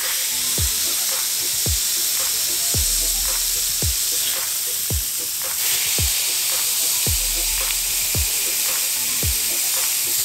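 Beef patties sizzling on a hot flat-top griddle as they are smashed thin, under background music with a deep kick drum about once a second.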